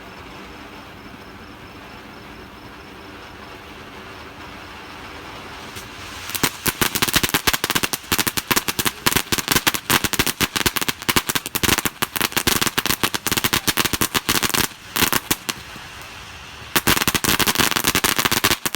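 Consumer fireworks going off in a rapid, dense run of sharp crackling bangs, many a second. The run starts about six seconds in, pauses briefly, then starts again near the end.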